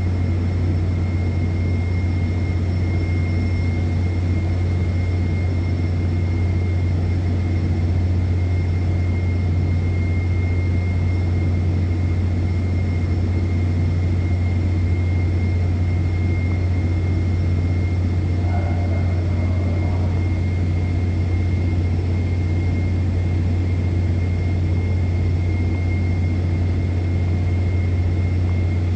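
Offshore platform machinery running: a steady, unbroken deep drone with a thin constant high whine above it.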